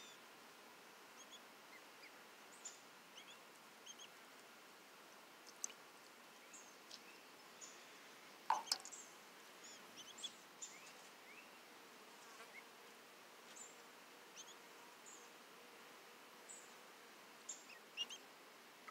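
Two-day-old Cayuga ducklings peeping: scattered short, high chirps, many falling in pitch, with a louder cluster about eight and a half seconds in.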